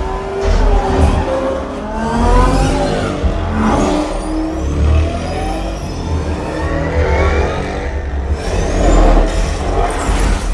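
Film-soundtrack car race played back over a Focal and REL speaker system: several engines revving and speeding past, their pitch sweeping up and down, over a heavy bass rumble.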